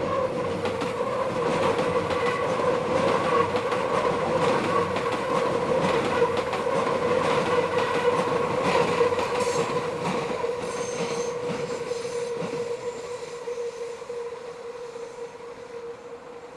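Meitetsu electric train's wheels squealing steadily as it rounds a tight curve, a held tone over the rumble and clatter of the wheels on the rails. It grows louder as the train passes, then fades toward the end.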